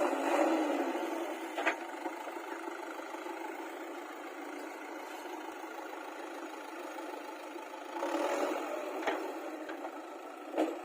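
Backhoe loader's diesel engine running steadily, with a few sharp knocks and a brief rise in engine noise near the end.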